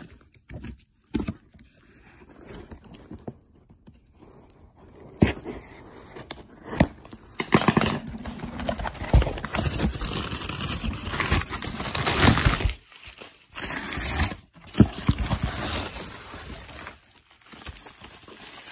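Packing paper and bubble wrap rustling and crinkling as hands dig through a cardboard shipping box, with scattered knocks and scrapes. A few quiet seconds with only light knocks come first, then the rustling runs on loud and unbroken.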